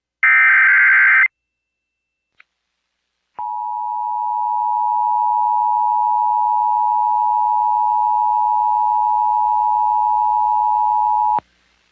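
Emergency Alert System tornado-warning alert: a burst of about a second of warbling SAME header data tones, then after a short pause a steady EAS attention tone lasting about eight seconds that cuts off suddenly.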